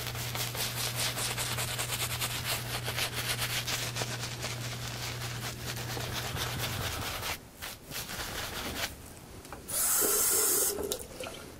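Silvertip badger shaving brush scrubbing glycerin-soap lather onto a stubbly face in fast bristly rubbing strokes, building the lather. These stop about seven seconds in. Near the end comes a short burst of running tap water as the brush is touched under the faucet.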